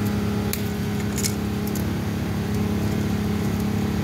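A steady engine hum, with a few short clicks and crinkles as tangled plastic wrap is snipped and pulled off a forklift steer-axle spindle with cutters.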